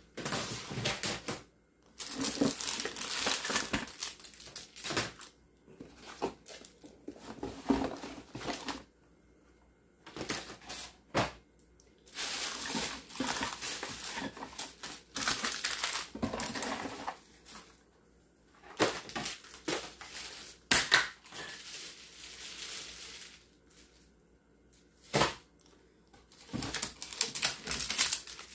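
Plastic bags and packaging crinkling and rustling in irregular spells as items are lifted out of a kitchen drawer, with a few sharp knocks of things being set down.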